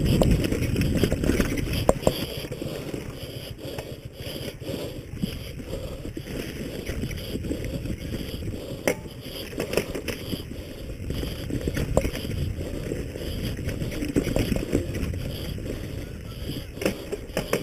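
Wind buffeting a camera microphone as a steady low rumble, with scattered knocks and rattles from a mountain bike riding over rough ground.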